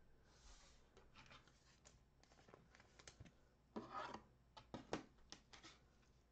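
Faint rustling and clicking of trading cards and pack wrappers being handled, with a brief louder rustle about four seconds in and a few sharp clicks around it.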